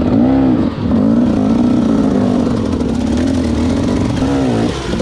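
Enduro dirt bike engine running hard, its pitch swinging up and down in quick throttle blips about half a second in and again near the end, with small wobbles in between.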